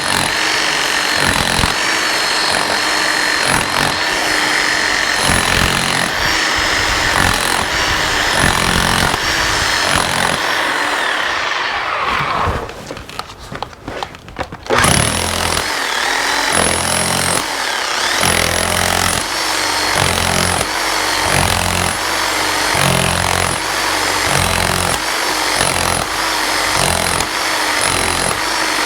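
A power tool working into a concrete foundation to widen a crack. It runs loud and steady with a rhythmic pulsing, stops for about two seconds roughly 13 seconds in, then starts again.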